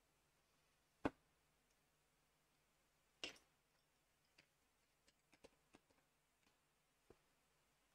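LEGO plastic bricks being handled and pressed together: a single sharp click about a second in, a brief scrape around three seconds, then a scatter of small clicks and taps, in an otherwise near-silent room.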